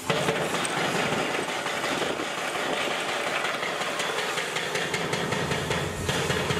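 A 4000 kg hydraulic breaker hammer on an excavator pounding steel in a rapid, steady stream of blows that starts abruptly, with the machine's diesel engine running beneath it.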